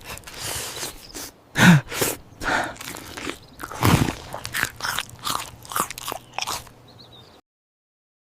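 Crunchy biting and chewing, a quick irregular run of crisp crunches at roughly two or three a second, which cuts off abruptly a little over seven seconds in.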